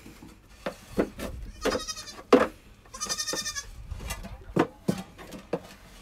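Nigerian dwarf goat bleating twice, the second call longer, with short sharp knocks in between.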